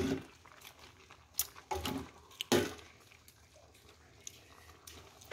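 Scattered light clicks and scrapes of a utensil stirring a thick eel curry in an aluminium pot, with a few soft wet bumps.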